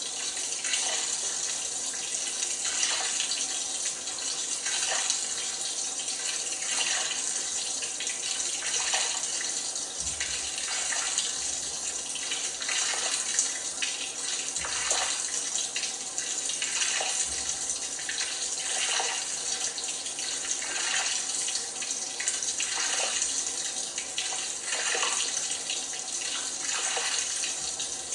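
LG washing machine washing a load of pajamas: water hissing and sloshing in the drum, with a swish about every two seconds as the load turns over.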